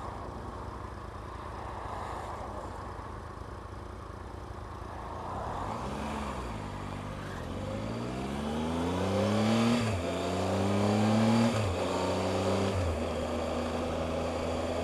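Steady wind and road rush at speed. About six seconds in, a motorcycle engine pulls hard, its pitch rising and then dropping sharply at each of three quick upshifts, before settling to a steady drone.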